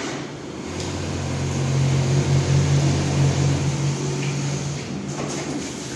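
Steady low machine hum that builds about a second in and eases off again after about four seconds.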